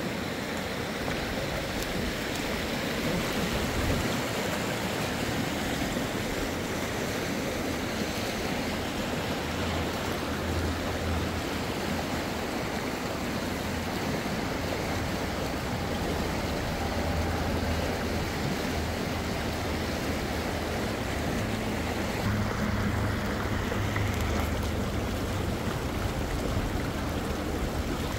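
Steady rushing of a flowing river, with a low rumble that comes and goes through the middle.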